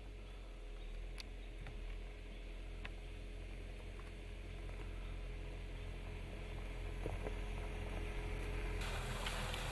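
Jeep Compass Trailhawk SUV running low and steady as it crawls along a dirt track, slowly growing louder, with a few faint clicks from the tyres. A louder steady hiss comes in near the end.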